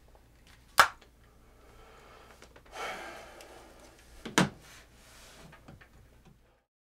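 Two sharp knocks about three and a half seconds apart, with a short rustle between them, over faint room tone; the sound then cuts off to dead silence.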